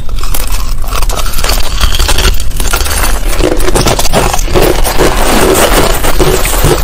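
Finely crushed ice being chewed, close-miked: a loud, dense, continuous crunching and crackling with no pauses.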